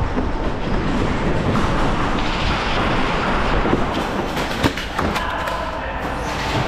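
Rumbling movement noise on a body-worn camera as the player walks quickly, with two sharp knocks a little after the middle and a faint steady hum from about five seconds in.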